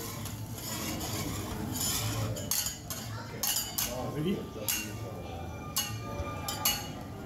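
Metal spatula clinking and scraping on a flat steel griddle, in irregular sharp strikes.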